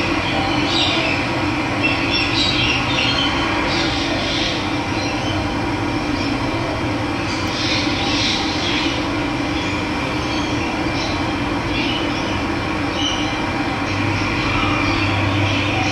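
Running water rushing steadily, with birds chirping now and then over it.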